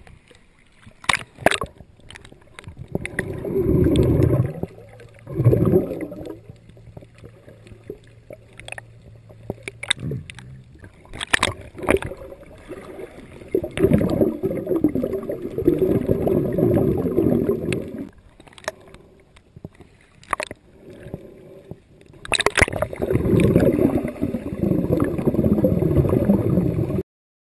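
Muffled underwater water sounds picked up by an action camera held underwater: several long stretches of bubbling, rushing water between quieter spells, with scattered sharp clicks and knocks. The sound cuts off suddenly near the end.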